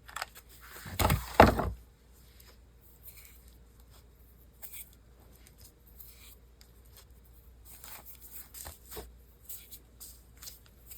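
Craft materials being handled at a table: a couple of loud rustling knocks about a second in, then faint scattered rustles and small clicks.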